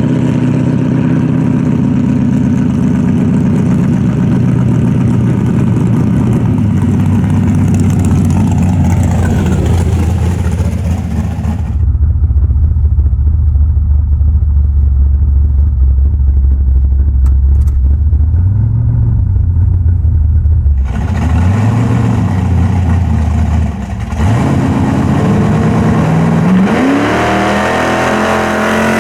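1974 Chevy Nova's engine running under load on a street test run with a freshly fitted 3.42 rear gear. It holds steady at first and goes muffled for several seconds in the middle. Near the end it accelerates hard, its pitch climbing steadily, then drops off.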